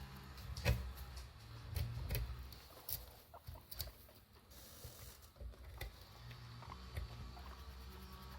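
Guinea pigs scuffling about in and around a hidey: irregular small clicks, taps and rustles, with the loudest tap a little under a second in.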